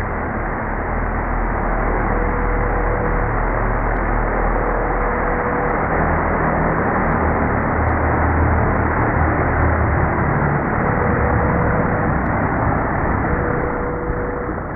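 DJI Mini 2 drone's propellers and motors, slowed down to a low, steady rushing hum as it hovers down and lands. The sound begins to fade near the end as it touches down.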